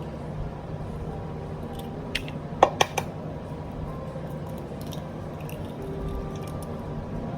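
An egg cracked against the edge of a bowl: three or four sharp taps close together about two to three seconds in, as the eggs are broken to separate the whites from the yolks.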